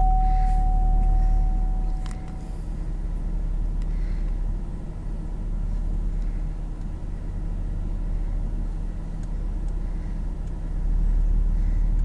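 Low, steady rumble of a vehicle moving slowly, heard inside the cabin, louder for the first couple of seconds and again near the end. A thin steady tone sounds over it for the first two seconds or so.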